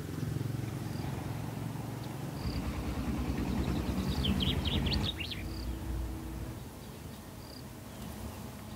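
Outdoor ambience of small birds: a quick flurry of chirps about four seconds in and faint short calls recurring. A low pulsing rumble underneath swells in the middle and fades after about five seconds.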